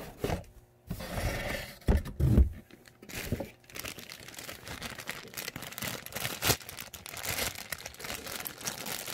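Cardboard box being opened and handled, with a few dull knocks in the first seconds. Then a clear plastic bag crinkles steadily as it is unwrapped from around a doll head, with one sharp click partway through.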